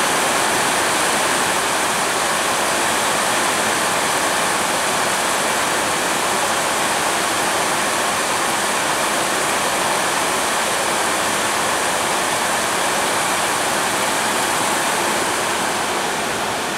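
Steady rain falling over rooftops and streets, an even hiss with no let-up.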